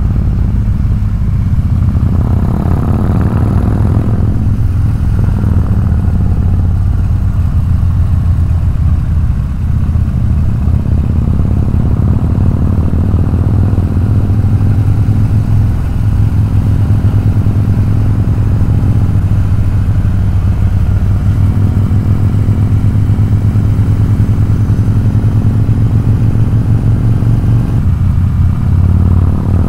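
Harley-Davidson motorcycle's V-twin engine running steadily at cruising speed, with a loud, constant low rumble.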